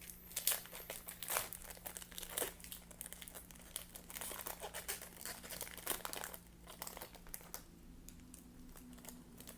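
Foil wrapper of a Topps Chrome baseball card pack crinkling and tearing as it is worked open by hand, in irregular crackles that die down near the end. A steady low hum runs underneath.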